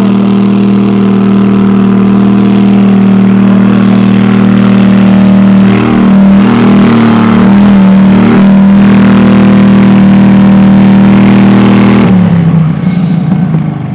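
Garden tractor engine running flat out, a loud steady drone, as it drags a weight-transfer sled. The pitch wavers briefly a couple of times midway under the load. About twelve seconds in, the engine is throttled back at the end of the pull and the sound drops away.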